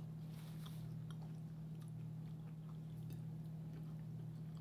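A person chewing a mouthful of Reuben sandwich close to the microphone: faint, irregular wet mouth clicks and smacks over a steady low hum.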